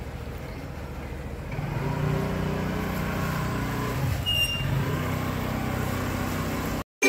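Two-wheeler engines running: a scooter pulling away while a motorcycle rides up, the engine hum growing louder about two seconds in.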